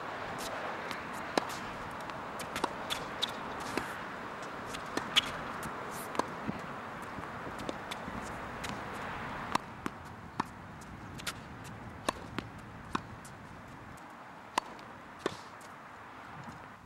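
Tennis ball strikes and bounces on an outdoor hard court: a string of short, sharp pops at uneven intervals, roughly one every half second to second, over a steady hiss.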